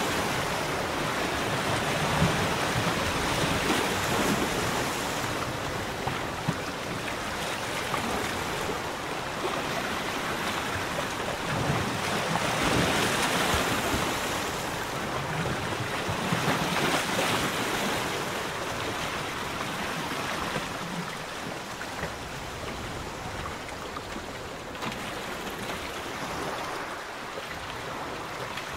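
Small waves on the Ria Formosa lagoon lapping and washing, swelling and easing every few seconds.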